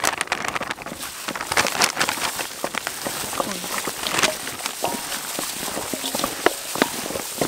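Plastic-gloved hands pouring flour over raw chicken pieces and tossing them in it in a stainless steel bowl: a dense, irregular patter of rustles and small clicks.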